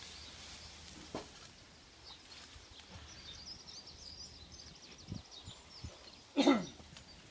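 Small birds chirping and twittering faintly over outdoor background noise, with a few soft knocks. Near the end comes one short, loud sound that slides down in pitch.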